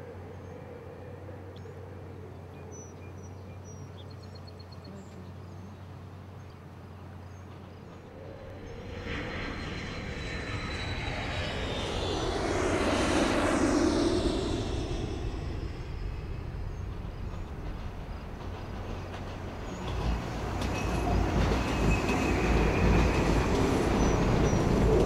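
Elevated subway train running on its viaduct, a steady rumble with wheel noise that comes in about twenty seconds in and grows louder. Before it, a rush of passing-vehicle noise swells and fades in the middle, over faint bird chirps.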